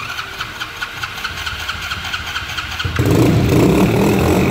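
ATV engine being cranked by its electric starter with a fast, even pulsing for about three seconds, then catching and running loud and rough.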